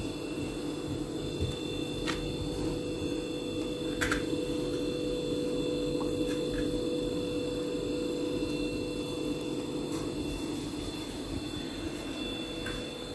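A steady mechanical hum with several fixed tones, broken by a few faint clicks.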